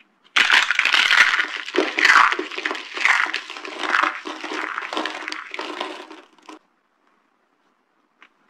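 Dry soap being crushed: a dense crunching crackle for about six seconds, swelling and easing in waves, that stops abruptly, followed by a couple of faint clicks near the end.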